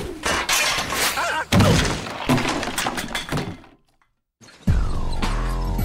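Cartoon slapstick crash effects: a rapid clatter of knocks and breaking, then one heavy thud about a second and a half in that dies away to a brief silence. Near the end a falling tone starts.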